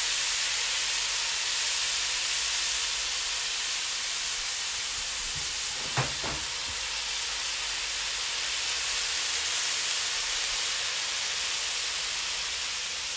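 Chicken and vegetables sizzling steadily in a hot Weber wok on the grill, a continuous frying hiss. A single short knock about six seconds in as the wok is shaken.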